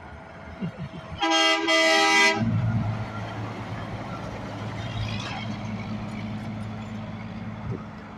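Semi-truck air horn blown in two quick blasts, about a second in all, followed by the steady low drone of the red Volvo VNL tractor's diesel engine as it pulls a loaded flatbed trailer past.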